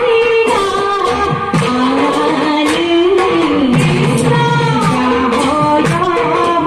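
Women's group singing an Assamese dihanam devotional song in unison, with hand claps keeping the beat.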